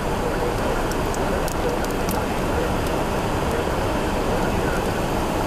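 Steady road and wind noise inside a car driving on a wet highway in rain, with a few raindrops ticking on the windshield.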